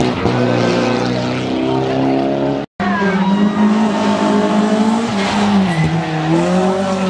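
Rally car engine running hard, its pitch shifting as it revs and changes gear. It cuts off abruptly about two and a half seconds in and picks up again at once, with the note dipping and climbing back near the end.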